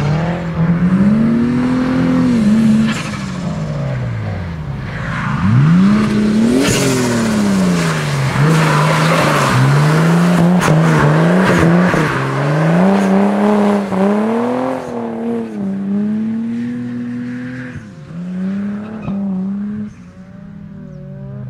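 Engine-swapped Nissan Silvia S14 drifting: its engine revs climb and fall again and again, often held at one high pitch for a while, with tyre noise loudest in the middle. The sound drops away near the end.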